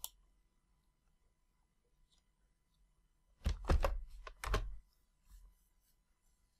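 A short run of keystrokes on a computer keyboard about three and a half seconds in, followed by one more keystroke, against a quiet room; a single click at the start.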